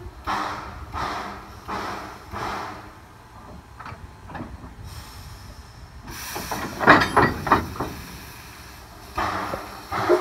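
Steam locomotive Edison No. 1 backing slowly, with several soft exhaust chuffs, then loud metallic clanks as the tender's coupler meets the car. A steam whistle starts right at the end.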